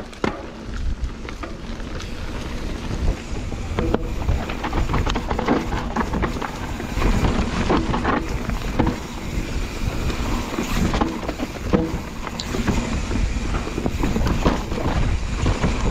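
Mountain bike riding down a dirt trail: a steady rumble of tyres and wind on the microphone, with frequent knocks and rattles from the bike over rough ground.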